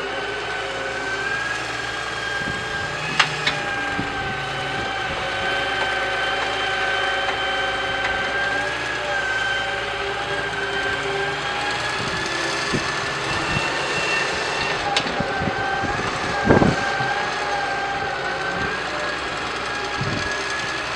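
Doosan DX140W wheeled excavator at work: its engine runs steadily with a high, even tone over it. A few sharp knocks come as the bucket digs, the loudest about three-quarters of the way through.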